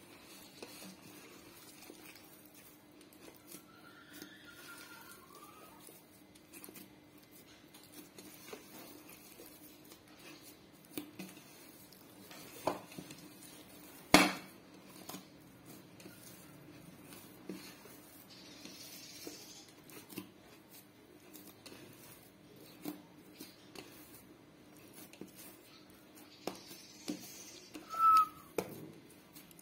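Hands kneading rice-flour dough in a bowl: quiet handling noise with scattered light knocks of the bowl, one sharp knock about halfway through, and a brief squeak near the end.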